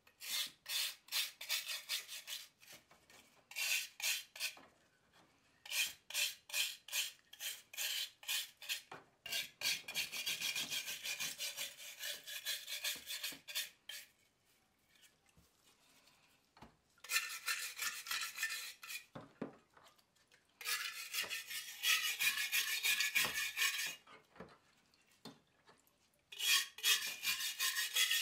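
Wire brush scrubbing heavy rust off a wet steel bayonet scabbard in quick back-and-forth strokes. The scrubbing comes in several bursts with short pauses between them.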